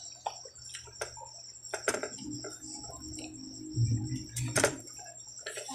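Mouth sounds of eating grilled barbecue: sharp smacks and clicks every second or so while chewing, with a dull, louder bout of chewing about four seconds in. Behind it runs a steady high chirring of night insects.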